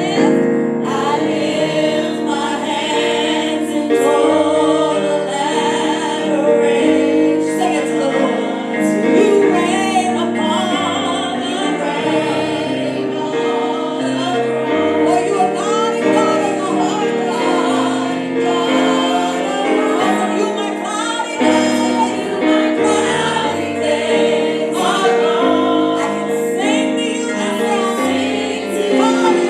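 Church choir singing a gospel song over sustained keyboard chords.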